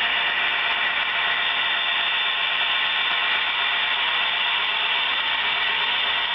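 A model train running past: the steady mechanical whir of its motors and gearing, with the wheels running on the track.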